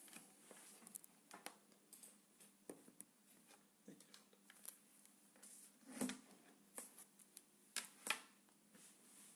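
Quiet room with scattered small clicks and rustles, the loudest about six seconds in and again about eight seconds in.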